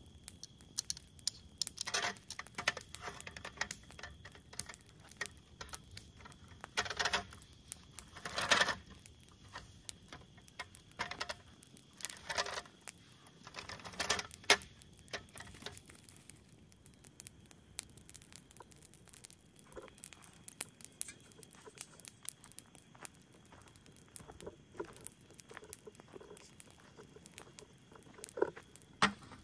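Irregular light taps and clicks with a few louder crinkling rustles, the loudest about seven and eight and a half seconds in, over a faint steady high-pitched tone.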